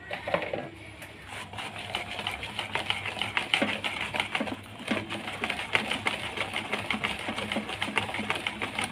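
Wire whisk beating thick besan (gram-flour) batter in a plastic bowl: a fast, steady run of wet clicks and slaps as the wires hit the batter and the bowl. The batter is being beaten to aerate it.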